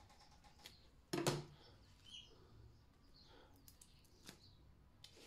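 A large kitchen knife cuts through the stem end of a charred, roasted eggplant and strikes the cutting board with a single sharp knock about a second in. Faint small clicks and rustling follow as the blackened skin is pulled back by hand.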